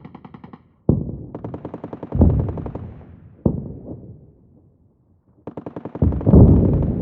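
Bursts of rapid automatic gunfire mixed with heavy booms of distant explosions, each boom fading away over about a second, with single shots in between. There is a short lull about two-thirds of the way through, then another burst and a big explosion near the end.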